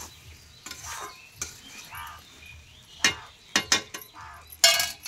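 Metal spatula clinking and scraping against a metal kadai while vegetables are stirred: scattered sharp clinks, coming thicker in the second half, with the loudest strike near the end.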